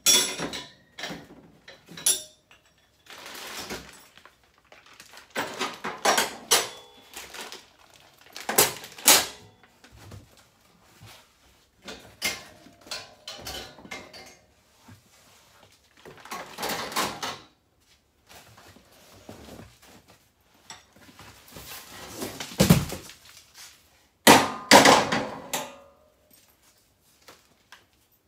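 Black steel sections of a 7blacksmiths roof-rack basket being lifted out of a cardboard box and set down on a table: irregular metal clanks and rattles mixed with cardboard and plastic-bag rustling. A heavy thunk comes a little before the end, followed by a burst of clattering.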